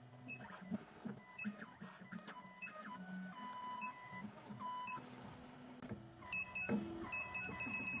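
2M2 Tank II Pro CNC key cutting machine's stepper motors whining as the carriage moves the decoder probe over a clamped key to read its cut depths and positions. Each move is a short whine that rises, holds and falls in pitch, with small clicks between moves. A louder, steadier high whine starts near the end.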